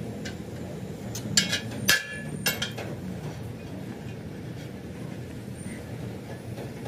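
A few sharp metal clinks, about three in the first two and a half seconds, each ringing on briefly, as a steel bar and marking tool touch a steel wheel rim. A steady low hum runs under them.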